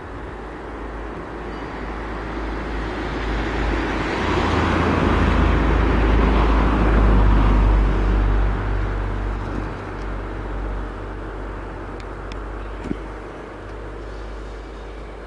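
A motor vehicle passing by: a broad engine and road noise that grows louder to a peak about seven seconds in, then fades away. A short click sounds near the end.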